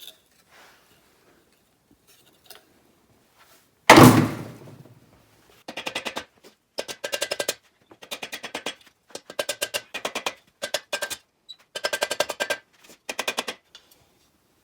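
One loud metallic knock with a low ringing tail, then repeated short bursts of rapid clicking from a ratchet wrench worked back and forth, as fasteners are taken off during teardown of a VW Type 1 1600 engine.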